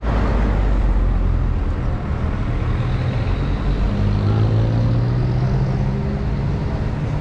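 Road traffic: a motor vehicle's engine running close by over a steady low street rumble. In the second half its hum rises a little in pitch.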